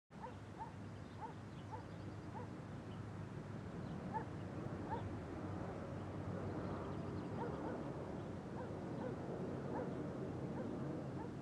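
Faint short calls from an animal, repeating about twice a second at first and then more scattered, over a low steady background rumble.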